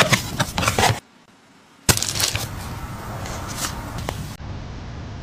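A pop song cuts off abruptly after about a second; after a short gap, scattered clicks and scraping handling noises sound over a steady hiss.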